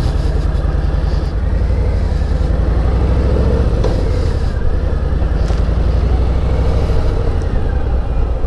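Harley-Davidson Softail Slim's Milwaukee-Eight V-twin engine running steadily as the motorcycle rides along, its sound mostly low and deep.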